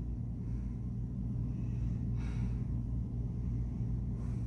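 Steady low room hum with no speech, and a soft breath heard as a faint hiss about two seconds in.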